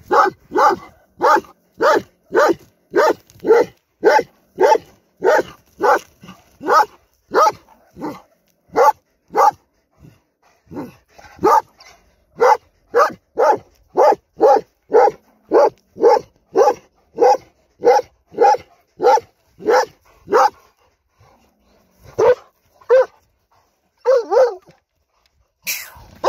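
A large shepherd dog barking over and over in an even rhythm, about two barks a second, at a weasel hiding in a rock crevice. The barking breaks off briefly about ten seconds in, resumes, then thins to a few scattered barks near the end.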